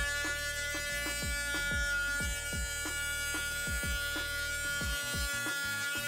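Cordless oscillating multi-tool buzzing steadily with a high whine as its saw blade cuts through the plastic reflector of a taillight lens. A music track with a steady beat plays under it.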